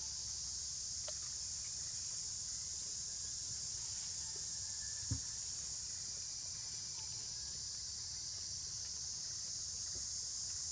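Insects droning steadily in a high-pitched, unbroken chorus, with a single short knock about five seconds in.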